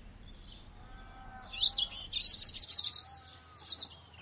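Small birds chirping, a rapid high-pitched twitter of many short calls that starts about a second and a half in and keeps going.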